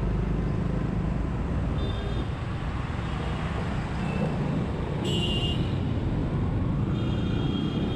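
Motorcycle engine running steadily while riding in traffic, with road and traffic noise around it. A short high tone sounds about five seconds in, and fainter ones at other moments.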